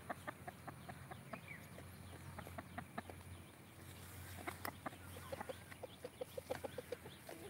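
Hen clucking, a scatter of short soft clucks that turns into a quick, even string of about five clucks a second past the middle.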